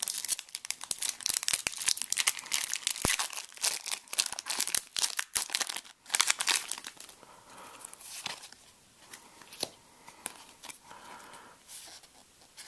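Foil trading-card booster pack wrapper crinkling and tearing open, dense crackling for about six seconds, then quieter, sparser rustling of the wrapper and cards.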